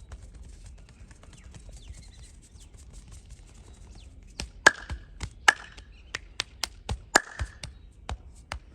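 Hand-percussion massage: the masseur's hands tapping and slapping on the body, coming in about halfway through as quick, irregular strokes a few times a second, with a few much louder slaps among them. Before that there are only faint scattered clicks.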